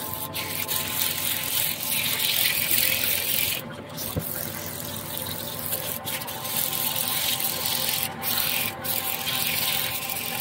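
A sponge pad rubbed back and forth over plastic film on a resin-coated mouse pad: a steady scrubbing hiss in long strokes, broken by a few short pauses.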